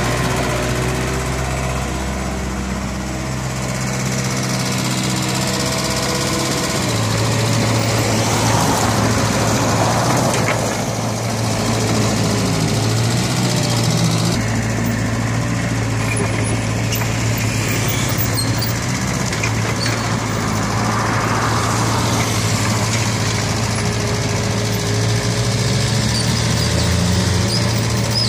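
Hanix H45A mini excavator's diesel engine running steadily under load while the machine digs and spreads wet soil. The engine note steps to a new pitch about a quarter of the way in.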